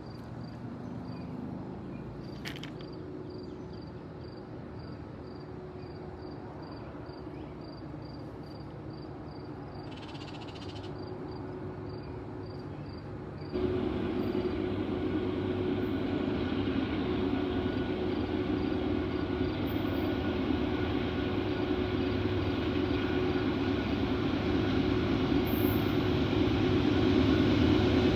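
Diesel locomotives of an approaching freight train running with a steady drone that grows louder, jumping up in level about halfway through as the train draws near.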